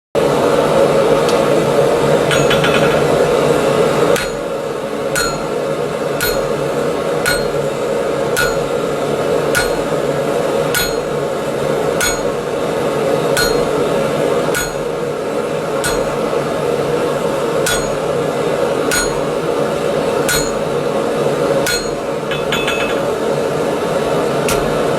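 Heavy blacksmith's hammer striking on an anvil, slow single blows about once a second, each with a short metallic ring, starting about four seconds in, over a steady rushing noise.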